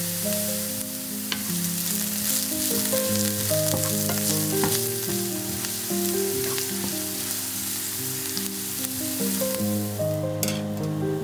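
Chopped onion sizzling in oil in a frying pan, with a wooden spatula scraping and stirring it now and then. Soft background music plays under the sizzle.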